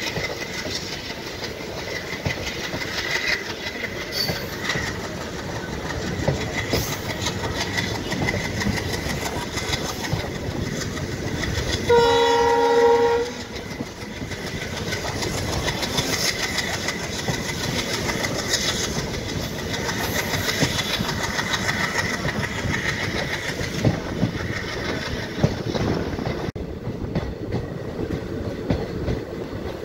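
Passenger train running: steady running noise with many small clicks. About twelve seconds in, the WDG-3A ALCO diesel locomotive's horn sounds once for a little over a second.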